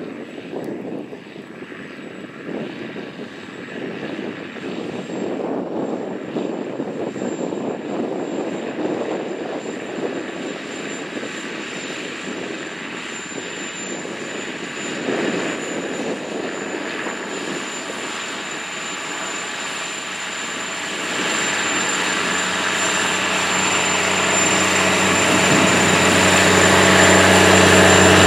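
Case IH 535 Quadtrac's diesel engine pulling under load across the field with a 40-foot Great Plains Turbo Chopper. It grows steadily louder as the tractor comes close, its steady engine drone standing out clearly over the last several seconds.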